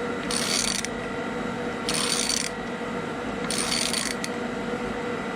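Ratchet wrench being worked back and forth on a nut welded to a snapped, rusted bolt, unscrewing it from its thread: three short bursts of ratchet clicking about one and a half seconds apart.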